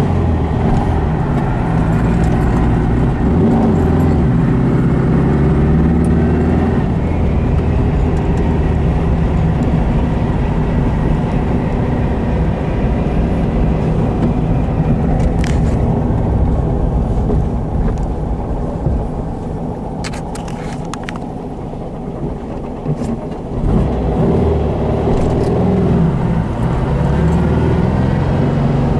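Porsche 356C 1600 SC's air-cooled flat-four engine running as the car is driven, heard from inside the cabin along with road noise. The engine eases off for several seconds past the middle, then picks up again with a rising note near the end as the car accelerates, with a few light clicks in between.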